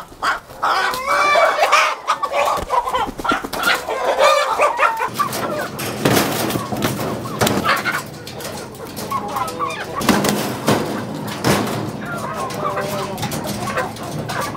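Country chickens squawking and clucking in wire cages while one is caught by hand, with wings flapping: the birds' alarm calls at the catch.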